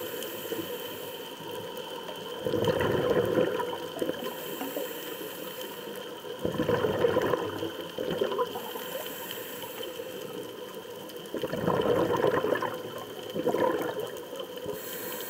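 Scuba diver breathing through a regulator underwater: a hiss on each inhale and a bubbling burst of exhaled air about every four seconds, four bursts in all.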